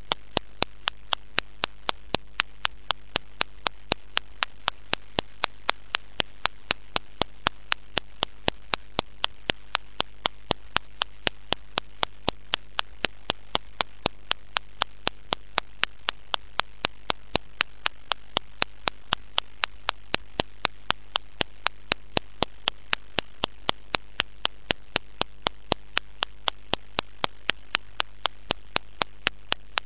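Sharp, evenly spaced clicks, about three or four a second, over a steady electrical hum.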